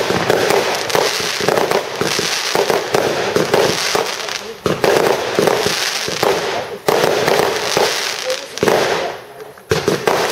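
Aerial fireworks shells bursting in quick succession, a dense stream of sharp pops and bangs with a brief lull near the end before more bursts.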